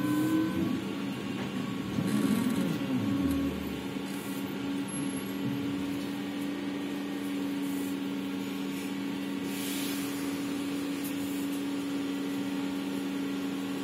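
1989 Ikarus-Ganz 280.94 trolleybus with Ganz electrical traction equipment: a motor whine falls in pitch over the first few seconds, then settles into a steady electrical hum. A short hiss of compressed air comes about ten seconds in.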